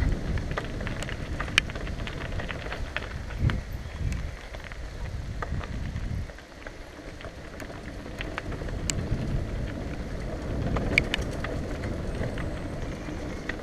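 Mountain bike descending a wet dirt trail: wind buffets the camera microphone and the tyres rumble over the ground, with frequent sharp clicks and rattles as the bike jolts over the rough surface.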